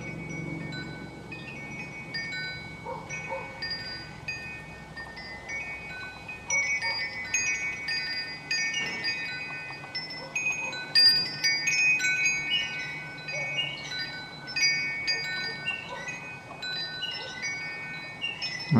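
Wind chimes ringing: several metal tones struck irregularly, each note ringing on for a second or two. The strikes grow busier from about six seconds in.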